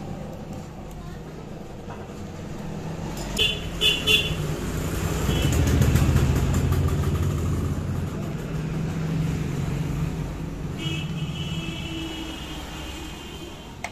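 Road traffic passing close by, a vehicle's rumble swelling and fading, with two short horn beeps a few seconds in and a longer honk near the end.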